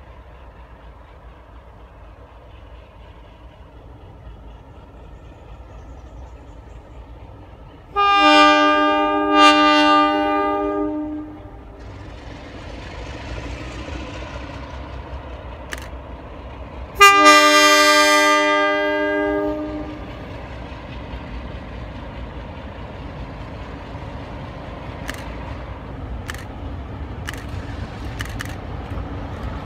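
Horn of a NSW 44 class diesel-electric locomotive sounding a long chord twice, about eight seconds in and again about seventeen seconds in, as the double-headed train approaches. Between and after the blasts, the locomotives' diesel engine rumble slowly grows louder as they draw near.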